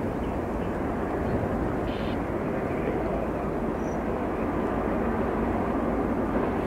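Jet engines of a heavy cargo airliner, a steady even rumble that holds its level without rising or falling.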